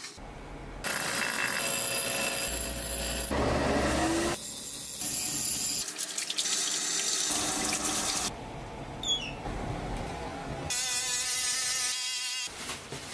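Water running from a tap into a sink, amid a string of short workshop noises that change abruptly from one to the next.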